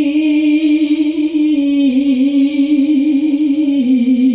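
Woman reciting the Qur'an in the melodic tilawah style, holding one long melismatic note with rapid wavering ornaments. The note steps down in pitch twice, about halfway through and again near the end.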